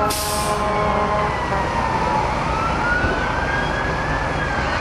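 Emergency vehicle siren on a slow wail, its pitch falling, rising to a peak and falling again. A short hiss sounds right at the start, and a held multi-note tone cuts off about half a second in.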